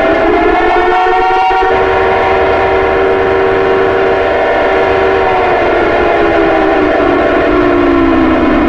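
Air-raid siren sounding a chord of several tones. It holds a steady pitch for about five seconds, then slowly winds down in pitch to the end.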